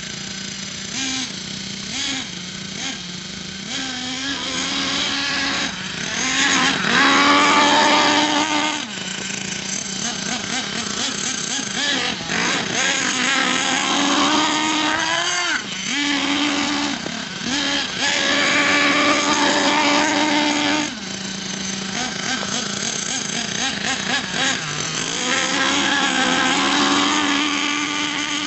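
Small nitro RC monster truck engine revving up and down over and over, its high-pitched note climbing and dropping, loudest a few seconds in and again about two-thirds through.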